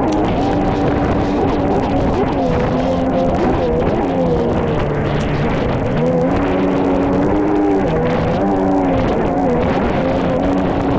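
Music with a melody of held notes that bend and slide in pitch, over the steady rush of a jet ski running at speed through choppy water.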